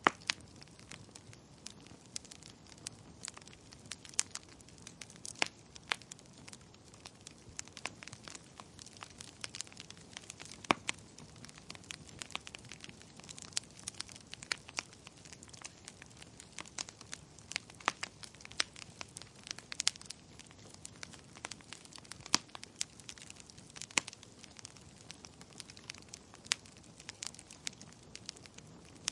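Wood fire of burning logs crackling, with irregular sharp pops, some much louder than the rest.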